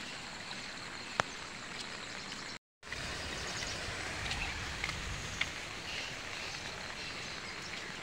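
Steady hiss of light rain and runoff water trickling over a wet asphalt road. There is a single sharp click just over a second in, and the sound breaks off completely for a moment a little before three seconds.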